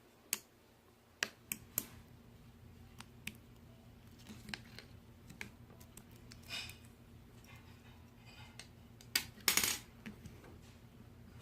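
Clear slime mixed with crunchy plastic pearl beads being pressed and squished by hand, giving scattered sharp clicks and crackles. There is a louder, denser crackling stretch near the end.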